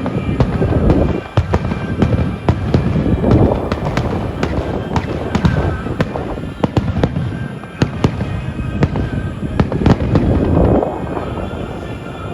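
Fireworks going off in quick succession: sharp bangs and crackling over a continuous low rumble of bursts.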